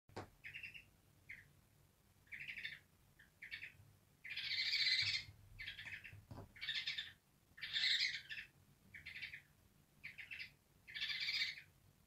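African grey parrot giving a string of harsh, bark-like calls, about a dozen in a row with short gaps, a few of them longer and louder. The owner calls the bird angry.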